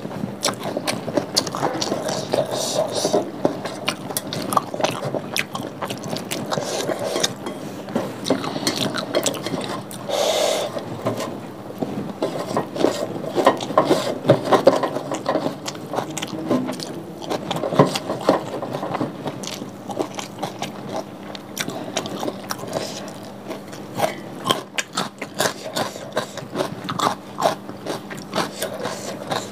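Close-miked eating sounds: chewing and smacking of fried cassava rice (nasi goreng tiwul) eaten by hand, with fingers scraping the grains from a stainless-steel bowl, a dense run of small clicks.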